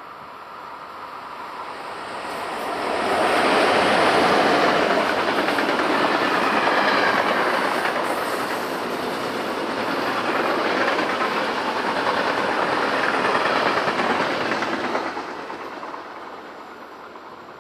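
An electric train passing close by on the main line, its wheels rattling over the rails. The noise builds over the first few seconds, stays loud for about twelve seconds, then fades away near the end.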